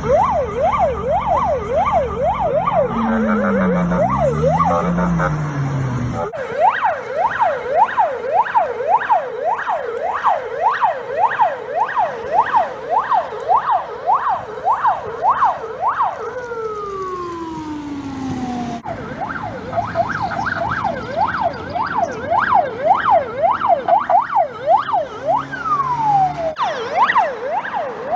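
Russian police car siren in a fast yelp, its pitch sweeping up and down about twice a second. Twice it winds down in a long falling glide, and the sound cuts abruptly between recordings several times.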